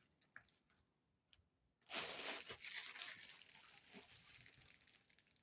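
Plastic packaging crinkling and rustling as it is handled, starting suddenly about two seconds in and slowly fading; a few faint clicks before it.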